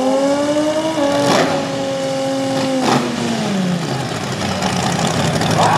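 Turbocharged Toyota 2JZ inline-six in a drag-race Corolla Trueno held at high revs through a burnout, with two sharp cracks in the first three seconds. About three seconds in the revs drop away to a steady, lumpy idle.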